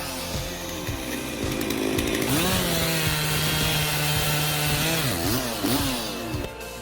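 Chainsaw running: it revs up about two seconds in and holds a steady high pitch for a few seconds, then drops and revs up and down several times near the end.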